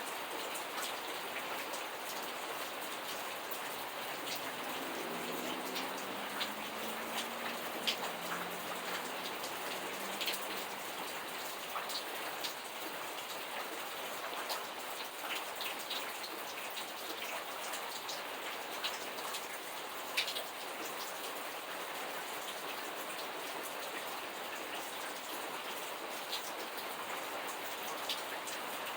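Steady rain falling, with scattered sharper drop hits on a surface over the even hiss.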